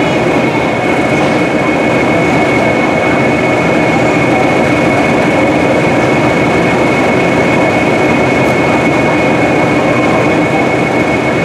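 Class 20 D8098 and Class 31 D5830 diesel locomotives standing at the platform with their engines idling: a steady, loud engine rumble with a constant high whistle over it.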